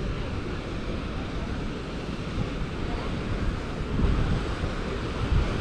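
Wind buffeting the microphone, an uneven low rumble over a steady outdoor rush.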